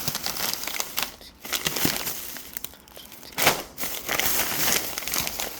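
Packaging crinkling and rustling as it is handled and opened, in irregular crackles with a louder crunch about three and a half seconds in.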